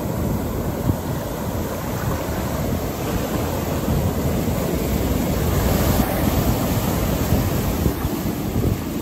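Ocean surf breaking and washing up over the sand in a continuous wash of water, swelling louder midway as a wave comes in.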